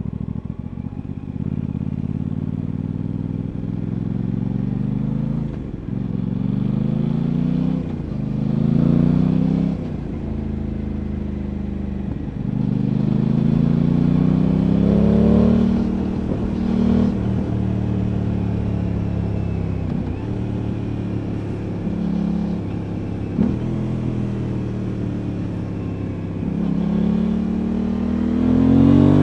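Aprilia Tuono 660's parallel-twin engine accelerating on the road, its pitch rising and then dropping back sharply again and again as it is shifted up through the gears, with steadier cruising stretches between.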